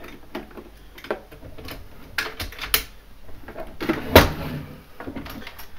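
Plastic and metal clicks and knocks as an airsoft support gun (an electric AEG) is handled and lifted off its box magazine, with one louder knock about four seconds in.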